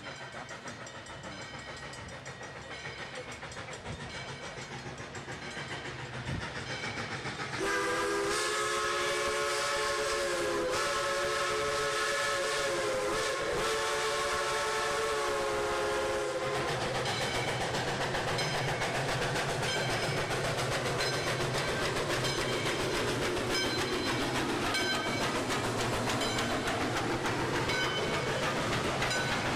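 Aberdeen & Rockfish No. 40 steam locomotive drawing closer, then its multi-note chime steam whistle sounding one long blast of about nine seconds. After the whistle the train passes close by with a low rumble and wheels clicking over the rail joints.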